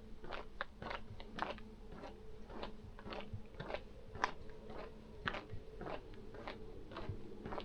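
Footsteps of a person walking on a path, a regular series of short crunching steps at about two to three a second, over a faint steady hum.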